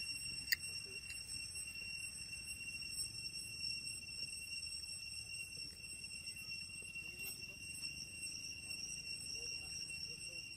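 Insects droning steadily at a high pitch, an unbroken, even tone. A single sharp click about half a second in.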